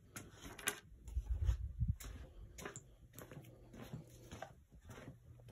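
Handling and movement noise: scattered light clicks, knocks and rustles, with a few dull low thumps about a second in, as someone moves about and picks up gear. A faint steady hum sits under the second half.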